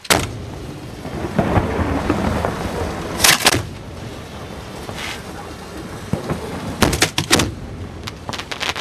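Aerial fireworks from a barge display going off: sharp booms near the start, a group about three seconds in, another about five seconds in and a quick run of bangs around seven seconds, with rumbling between them.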